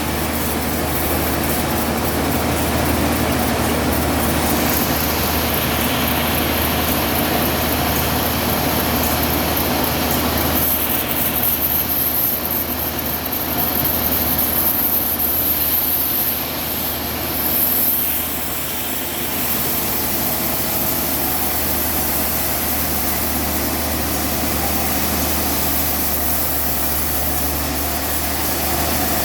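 Sawmill machinery running with a steady low engine drone. A high hiss rides on top from about five seconds in until about eighteen seconds.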